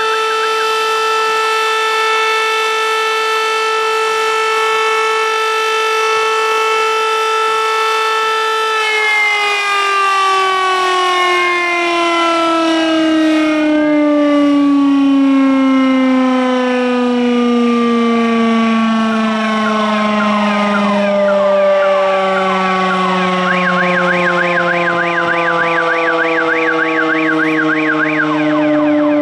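Fire station's midday siren sounding the daily noon signal: a steady, loud tone that, about nine seconds in, begins to fall slowly in pitch as the siren winds down. Near the end a second, quickly warbling tone sounds faintly over it.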